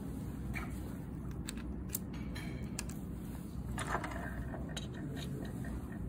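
A few light metallic clicks and clinks of bike parts being handled during headset and stem refitting, with a louder knock about four seconds in, over a steady low background hum.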